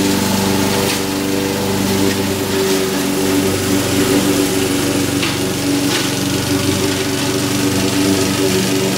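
Honda HR194 push lawn mower's engine running at a steady speed while the mower is pushed along cutting grass, an even unbroken hum.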